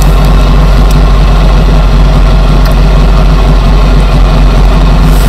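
Trabant's two-stroke two-cylinder engine idling steadily and loudly, heard from inside the car's cabin.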